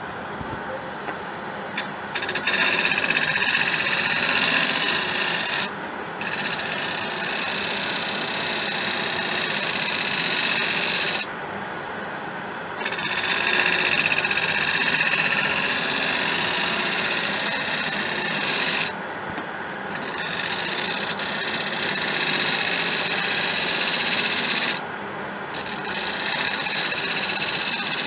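Bowl gouge making finishing cuts on a spinning acacia bowl on a Laguna 1836 wood lathe. There are five cuts of several seconds each, with short breaks between them in which the lathe runs on quietly.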